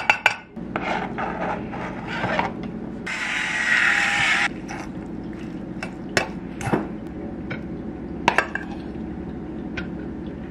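Egg salad being made in a bowl with a spoon: scattered taps and clinks, and a stretch of louder scraping that lasts about a second and a half, starting some three seconds in.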